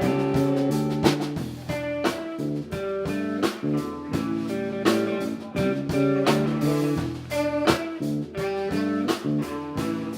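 A live band playing an instrumental passage of a blues-flavoured groove song, with held notes over a steady beat and no singing.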